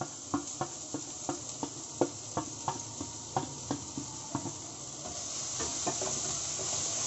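Wooden spatula knocking and scraping as grated ginger is pushed from a steel bowl into a frying pan, about three knocks a second. About five seconds in the knocks give way to a rising sizzle as the onion, garlic and ginger fry in oil and are stirred.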